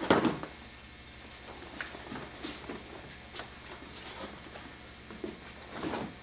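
Aikido breakfalls on the dojo mat: a thrown partner lands with a loud thump right at the start and another near the end, with softer thuds and shuffling of feet and rolls in between.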